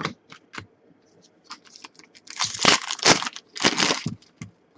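Crinkling and tearing of a foil trading-card pack wrapper being handled, in two bursts of about a second each, after a few light clicks.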